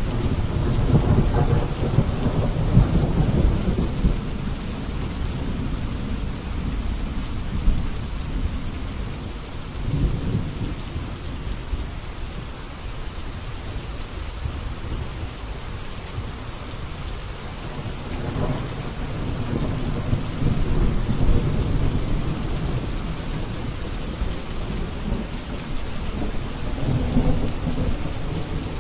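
Steady rain with rolling thunder: low rumbles swell and fade several times, the biggest at the start, with others about ten seconds in, around twenty seconds and near the end.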